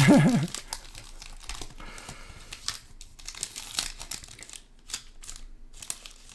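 Silver foil wrapper of a basketball card pack being torn open and crinkled by hand, a string of short sharp rustles as the stack of cards is slid out.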